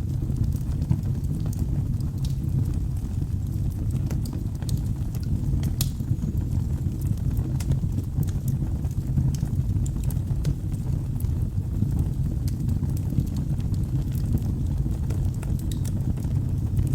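Wood fire burning in a fireplace: a steady low rumble under scattered, irregular sharp crackles and pops.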